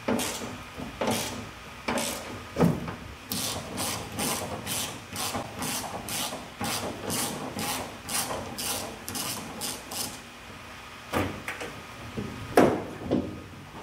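Ratchet wrench worked in quick back-and-forth strokes, about two to three a second, each return stroke rasping, as the trunk-lid hinge bolts are loosened. A few sharp knocks come near the end as the lid is handled.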